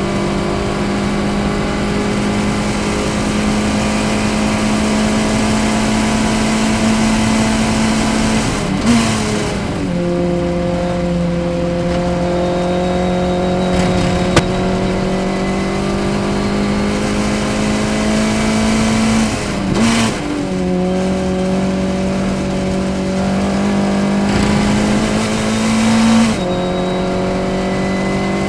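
Formula Ford race car's four-cylinder engine running hard at high revs, heard from the open cockpit with wind noise. Its pitch climbs slowly under power and drops abruptly three times, about nine seconds in, about twenty seconds in and near the end, before climbing again.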